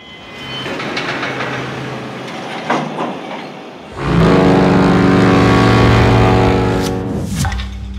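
Logo sound design: a rumbling, clattering industrial noise with a few knocks, then about halfway a loud, deep, steady ship's horn blast that lasts about three seconds and stops just before the end.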